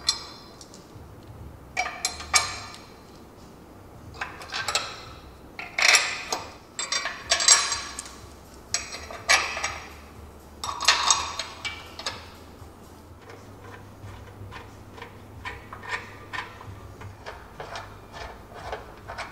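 Metal engine-mount adapter brackets and their bolts clinking and clanking against a steel chassis frame as they are set in place and fitted, in a dozen or so separate knocks. In the last few seconds the knocks give way to a run of lighter, quicker ticks.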